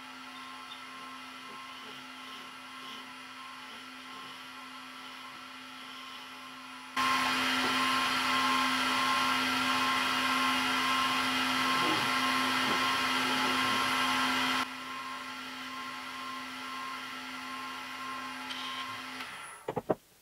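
Powermatic wood lathe running with a steady motor hum while a turning tool cuts a spinning PVC pipe fitting down to size. For about eight seconds in the middle the tool bites harder and the plastic gives a loud, even scraping hiss. Near the end the motor stops, followed by a few sharp clicks.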